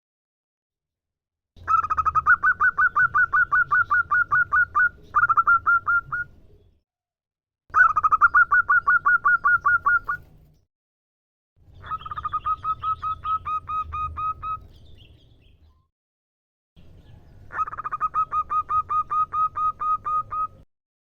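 Female zebra dove (perkutut) calling: four runs of rapid, evenly spaced staccato notes, about six a second, each run lasting a few seconds with short pauses between.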